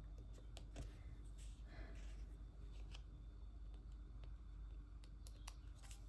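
Faint rustling and light ticks of a paper sticker sheet being flexed and handled while star stickers are picked off it with tweezers.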